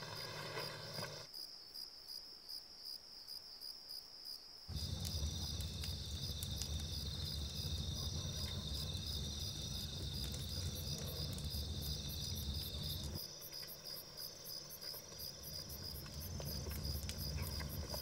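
Crickets chirping in a steady, fast pulsing trill, the night ambience of an outdoor scene. A low rumble lies underneath; it drops out about a second in, comes back about five seconds in, and weakens again near thirteen seconds.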